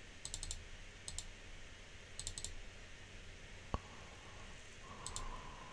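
Computer mouse clicks, faint, in four short runs of two to four quick clicks. A single louder knock comes a little before four seconds in.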